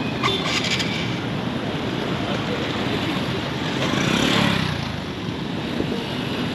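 Busy road-junction traffic: a steady mix of vehicle engines and tyres on the road. One vehicle passes close, swelling and fading about four seconds in.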